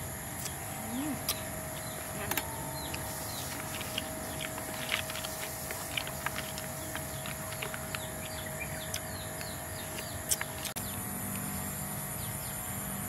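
Snail eating at a metal tray: scattered short clicks and taps of snail shells and a spoon, over a steady outdoor background of insects and bird chirps.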